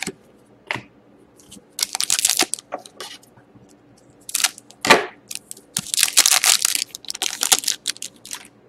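Plastic card sleeve and rigid top-loader crinkling and scraping as a trading card is slid into them and handled, in several short rustling bursts with one sharp crack about five seconds in.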